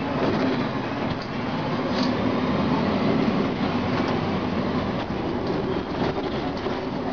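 Inside a 2004 Gillig Phantom transit bus on the move: the Cummins ISM diesel engine and Voith automatic transmission running steadily under the road and body noise, with a few light rattles.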